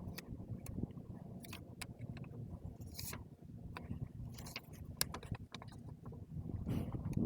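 Index cards being tucked between a wheel rim and its tire: scattered light clicks and short paper scrapes over a low steady background hum.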